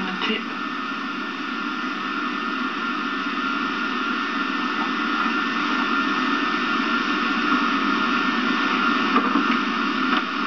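Steady hiss and hum from an old videotape soundtrack, with no distinct event.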